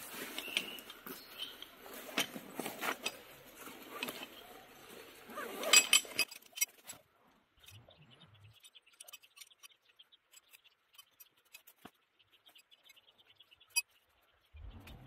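Nylon stuff sack rustling as a compact backpacking chair is pulled out, with the chair's metal frame poles clicking and clinking together, loudest about six seconds in. After that it goes mostly quiet, with a few light ticks as the frame is fitted.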